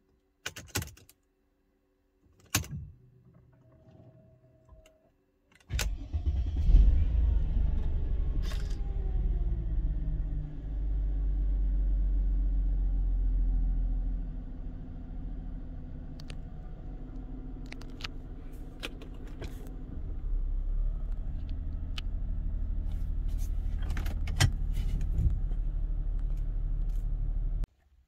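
Mercedes-Benz CLK320's V6 engine started with the key: a few clicks from the key and ignition, then the engine catches about six seconds in and idles steadily, growing quieter for a few seconds in the middle and louder again later. The sound cuts off suddenly near the end.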